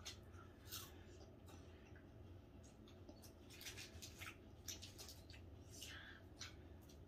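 Near silence: faint, scattered small clicks and smacks of children chewing chocolate, with brief rustles of a foil wrapper being handled.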